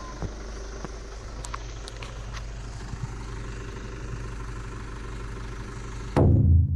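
A vehicle engine idling with a steady low hum, with a few faint clicks. Music starts suddenly about six seconds in and is the loudest sound.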